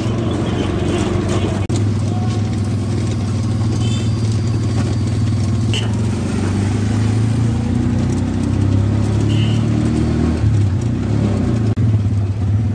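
CNG auto-rickshaw engine running steadily with a low drone, heard from inside its open passenger cab, with two or three short high beeps partway through.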